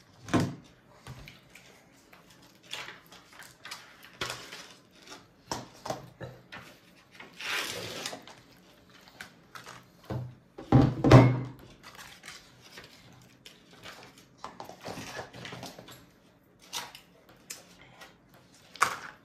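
Irregular small taps, knocks and rustles of babies handling food at their meal, with a louder clatter about two thirds of the way through.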